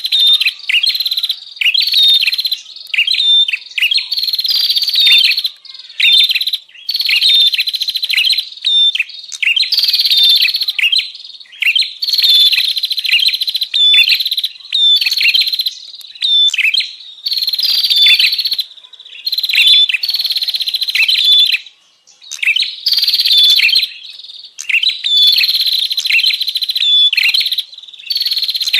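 Prenjak calling noisily: harsh, buzzy chattering phrases about a second long, repeated over and over with only short gaps. This is the agitated 'ribut' call used as a lure to draw wild prenjak.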